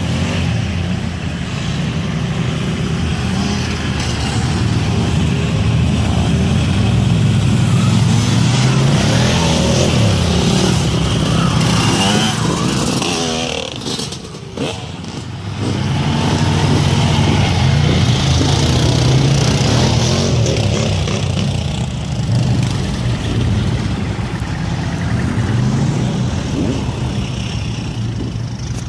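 Off-road 4x4 vehicles driving past one after another, their engines running and tyres on the ground. The sound swells and fades as each passes, with a short lull about halfway through.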